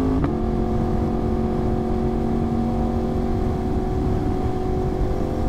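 Yamaha R1 inline-four engine running under way at steady revs, with low wind rush underneath. Just after the start there is a small click and the engine note steps down slightly, then it holds steady.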